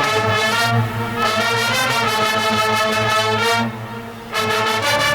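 Marching band brass playing loud, long-held chords. The first chord lasts about three and a half seconds, drops away briefly, and a new chord enters near the end.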